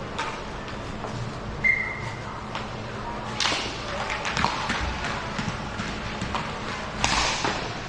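Ice hockey play on a rink: skates scraping the ice and sticks clacking, with the loudest scrapes about three and a half seconds in and again near the end. A short steady high tone sounds about two seconds in.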